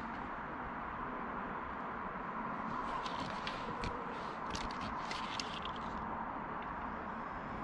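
Steady background hiss in a quiet room, with a run of faint clicks and taps between about three and six seconds in.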